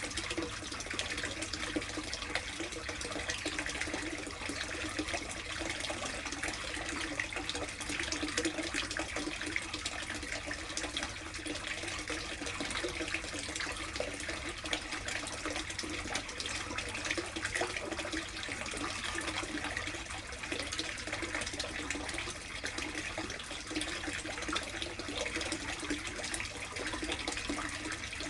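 Steady running, splashing water in a koi tub, as from water pouring in at the surface, going on without a break.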